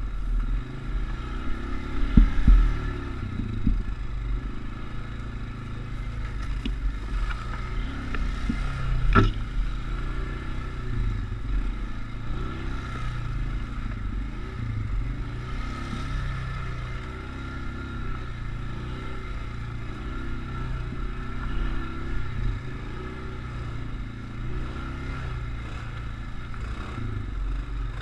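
Off-road vehicle engine running and revving up and down over and over as it climbs a rough trail, heard close from a camera mounted on the vehicle. A few knocks and scrapes come through, the sharpest about nine seconds in.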